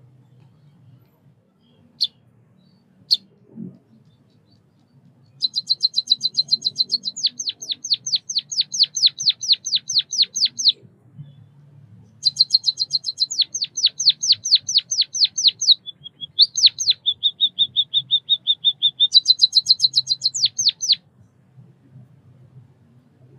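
White-headed munia (Lonchura maja) singing: two short single calls, then three long runs of rapid, evenly repeated high notes, the last broken by a brief buzzy stretch.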